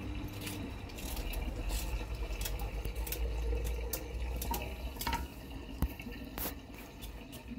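Knife slicing a red kapya pepper held in the hand, the cut pieces dropping into a stainless steel pot with irregular soft clicks and drips.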